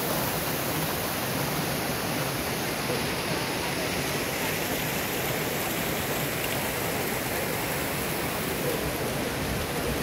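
Waterfall cascading down sloping rock slabs: a steady, even rush of water.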